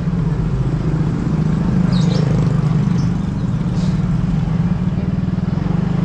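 Motor scooter engine running with a steady low hum while being ridden, heard from the rider's seat.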